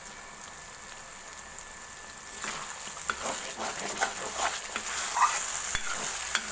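Thick masala paste sizzling in mustard oil in a kadhai, cooked to the point where the oil separates. About two and a half seconds in a steel spoon starts stirring it, scraping repeatedly against the pan.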